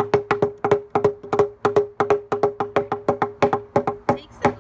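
A mallet and a claw hammer pounding on paper over flowers on a wooden table: a quick, uneven run of sharp knocks, about four or five a second, each with a short woody ring.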